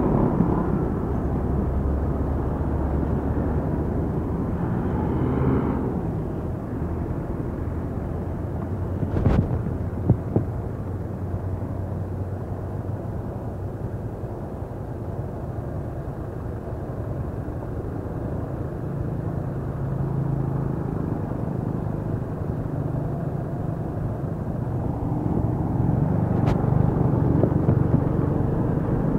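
Steady rumble of road traffic and wind rushing past a phone microphone on a moving bicycle, with a few sharp clicks. Near the end a pickup truck passes close alongside and the noise grows louder.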